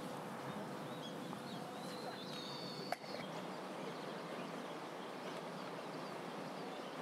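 Outdoor ambience: a steady hiss with a few high whistled bird calls, the clearest a drawn-out whistle about two to three seconds in, and a single sharp click near three seconds.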